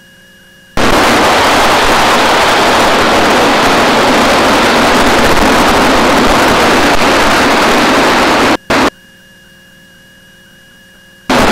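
Beech T-34A Mentor cockpit noise, engine and wind, heard as a steady loud rush through an open intercom microphone. It cuts in under a second in, drops out about three-quarters through after a brief blip, and returns just before the end, with a faint steady electrical hum in the gaps.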